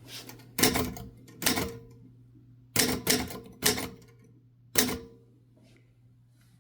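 1969 Adler J5 manual typewriter being typed on: about six sharp key strikes in a slow, uneven run, each with a brief metallic ring.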